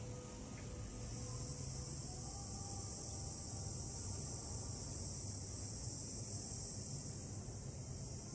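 A steady, high-pitched chorus of insects, with a low steady hum underneath.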